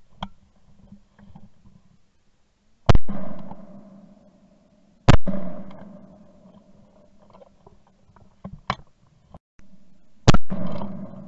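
Three shotgun shots, about three seconds in, five seconds in and near the end, each ringing out with a trailing echo. A few smaller sharp clicks fall between them.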